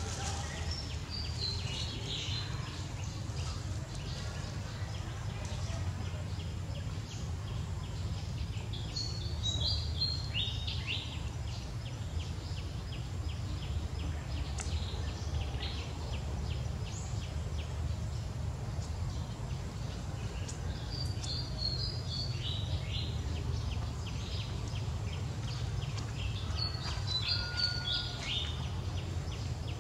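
A bird singing short phrases of high, stepped, falling notes, four times, over a steady low background rumble.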